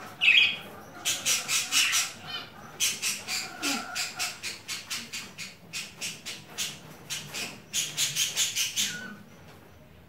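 Budgerigar calls: a short rising chirp, then a rapid run of harsh squawks, several a second, that stops about nine seconds in.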